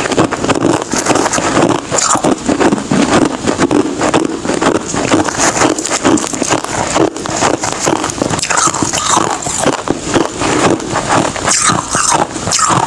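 Close-miked chewing of hard ice, a dense run of crunches and crackles.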